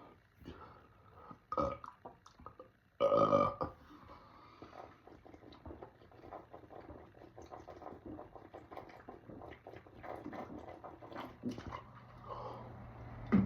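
A man burps loudly for under a second about three seconds in, after a shorter burp just before it; the gas comes from chugged carbonated soda. Small clicks fill the rest.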